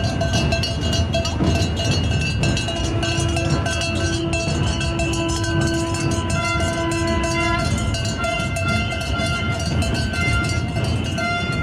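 Crowd of marchers passing on a street, a dense noise of feet and voices with clicks, overlaid by several long steady tones at different pitches, one lower tone held for about five seconds in the middle.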